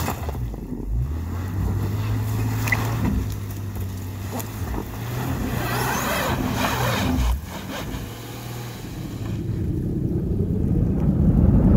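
Subaru Outback's engine running under load while its tyres spin and churn in deep snow, losing grip; the sound grows louder toward the end.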